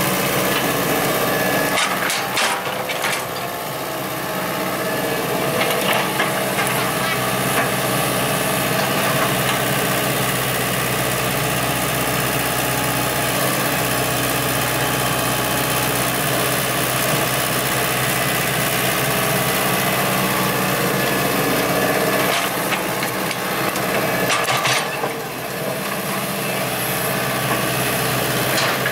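Komatsu hydraulic excavator's diesel engine running steadily while it grades soil, with a few short knocks and clatters from the machine along the way.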